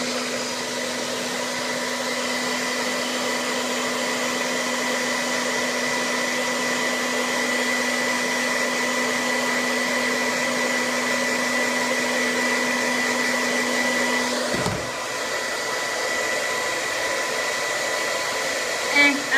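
Hair dryer running steadily on high, blowing hot air onto a vinyl doll head to soften it. About three-quarters of the way through, its low hum drops out with a brief dip in loudness, and the blowing carries on.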